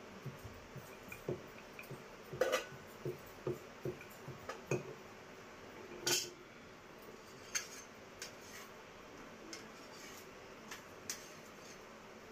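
Kitchen clatter of chapati-making: scattered knocks of a wooden rolling pin on the counter and clinks of a metal spatula against the pan, the loudest clatter about two and a half and six seconds in.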